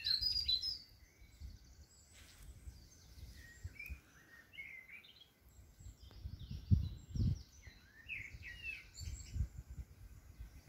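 Songbirds chirping and singing, several short calls at a time, loudest in the first second. A few low rumbles of wind on the microphone come about two-thirds of the way through.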